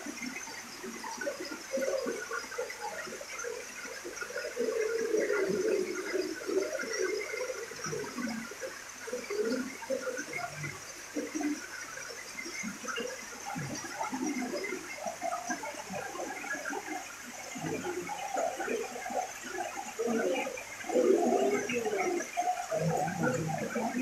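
A small waterfall's thin streams splashing into a rocky pool: an uneven patter and splash over a steady hiss.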